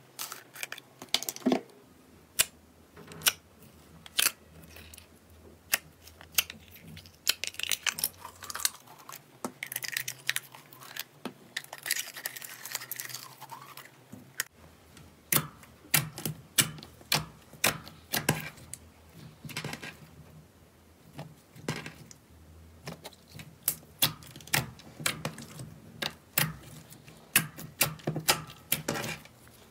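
Clear slime being worked out of a plastic jar and pressed and kneaded with the fingers, giving a steady run of sharp clicks and pops, with a denser crackling stretch about ten seconds in.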